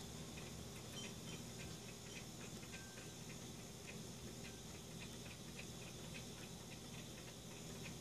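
Small tabletop fountain trickling, water pouring from two bamboo spouts into a shallow glass bowl, with irregular light plinks of drops a few times a second.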